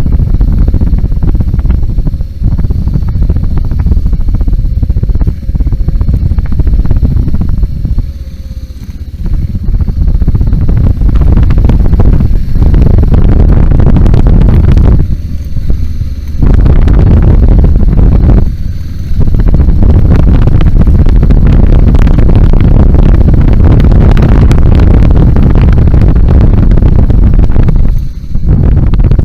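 BMW G 650 GS single-cylinder motorcycle being ridden off-road, the engine under heavy wind buffeting on the microphone. The sound dips briefly several times as the throttle or wind eases.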